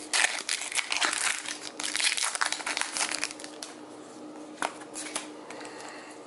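Foil Pokémon booster pack wrapper crinkling as it is handled and the cards are drawn out of it. The crinkling is dense for the first three and a half seconds, then quieter, with two short sharp crackles near the end.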